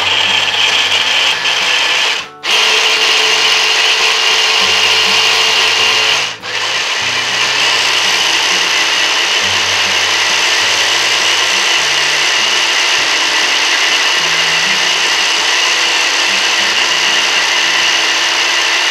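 Small electric mini chopper whirring as it blends chilli paste for sambal, its motor held on in three runs with two brief stops about two and six seconds in.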